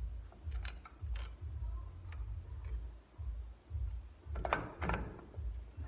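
Metal clicks and clacks of a brake spring tool against the springs, shoes and backing plate of a Chevy S10 rear drum brake during reassembly. Scattered light clicks are followed by a louder cluster of clacks about four and a half seconds in, over a low pulsing hum.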